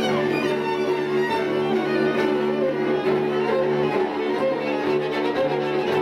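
String quartet of two violins, viola and cello playing a hoedown-style piece live: quick bowed figures in the upper strings over a held low note.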